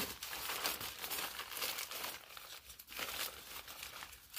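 Crinkly tent fabric rustling and crumpling as it is unfolded and handled, an irregular run of soft crackles and scrapes.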